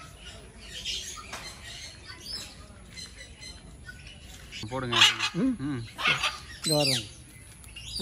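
Caged aviary birds chirping, with scattered high calls through the first few seconds. From about five seconds in there is a run of louder, wavering calls and one shrill sweeping call near the end.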